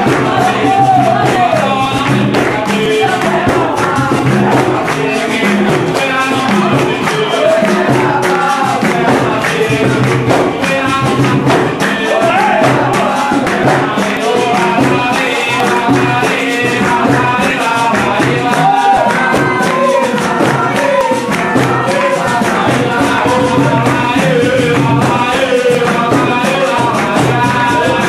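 Live capoeira roda music: a group of voices singing over pandeiro and atabaque drum, with the circle clapping along steadily.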